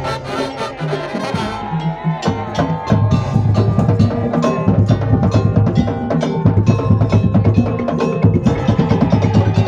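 Madurese ul-daul ensemble playing: fast, dense strikes on bamboo slit drums over drum beats, with held pitched notes from melodic instruments.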